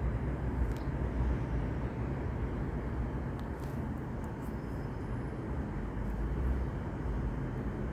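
Steady low rumble of outdoor background noise, with a few faint small clicks.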